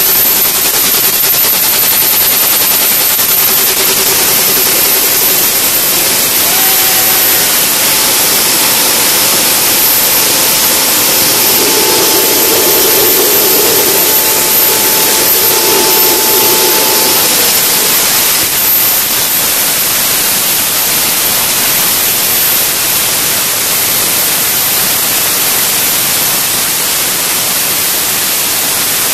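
Small turbine jet engine starting and running on a test stand, a loud steady rushing roar. A faint whine steps up in pitch about seven seconds in and fades out around seventeen seconds.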